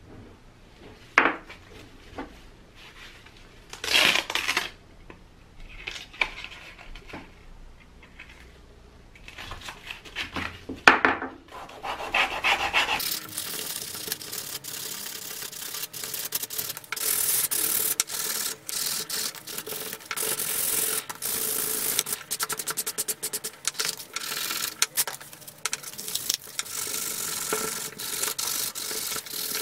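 Wooden tool handle being sanded by hand with a sanding block: a few short rubs and knocks at first, then from about halfway in a dense, continuous run of scratchy rubbing strokes.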